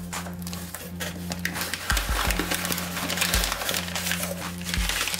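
Packing paper crinkling and cardboard rustling as paper is pulled out of a shipping box, over background music with steady low bass tones and a beat about every second and a half.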